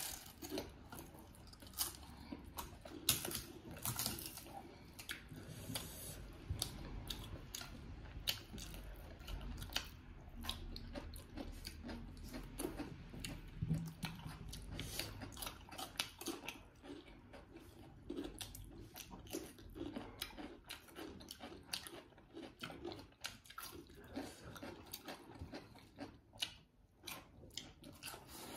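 Close chewing and biting of food, with many small irregular crunches throughout and a sharp crunch right at the start as a crisp fried cracker is bitten.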